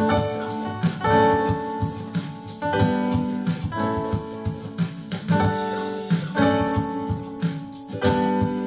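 Piano-voice chords played on a MIDI keyboard controller, changing about every second and a half, with a cajon tapping out a beat alongside.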